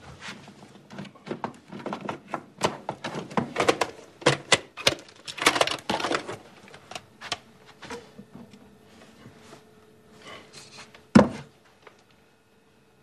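Irregular clattering and knocking, dense for the first several seconds, then a single loud thump about eleven seconds in.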